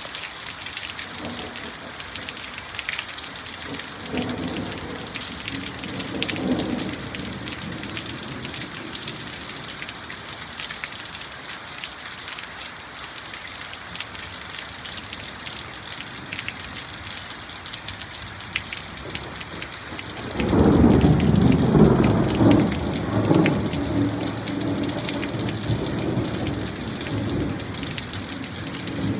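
Heavy tropical rain falling steadily. A faint roll of thunder comes a few seconds in, and a loud rolling peal of thunder breaks about two-thirds of the way through and rumbles on for several seconds.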